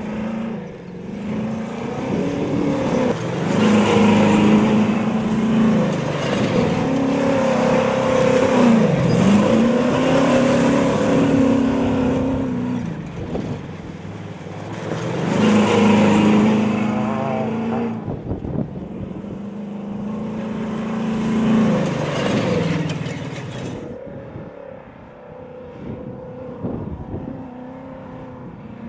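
Desert-racing pickup truck engines running hard at full throttle as the trucks go by, the engine pitch climbing and dipping with throttle and gear changes. The sound swells loudly several times and breaks off abruptly twice in the second half, then runs quieter.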